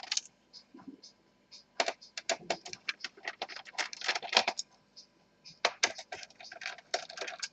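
A screwdriver and small screws clicking against a laptop's plastic chassis as the screws under the keyboard are taken out: irregular clusters of light clicks and taps.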